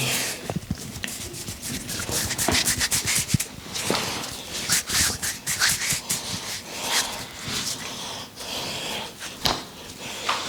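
A barber's hands rubbing and kneading an oiled scalp and hair, an irregular run of quick rubbing strokes.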